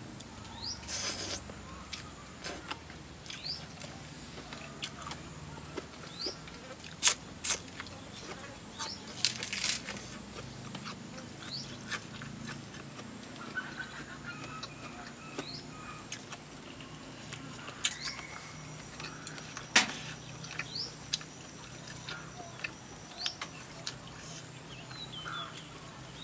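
Eating sounds: chewing and crunching with sharp clicks scattered throughout, alongside short rising bird chirps now and then.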